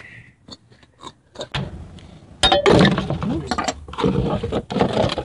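Metal axle parts clinking and clattering as they are handled: a few scattered clicks, then from about two and a half seconds a louder run of rattling and knocking.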